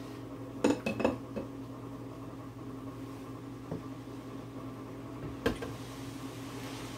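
Cookware and utensils clinking against a pot on the stove: a quick cluster of clinks about a second in, then a few single knocks, over a steady low hum.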